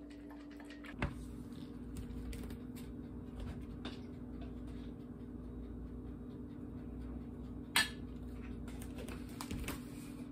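Dog eating dry kibble from a stainless steel bowl: scattered crunches and small clinks, with a sharper click about a second in and another near the end, over a steady low hum.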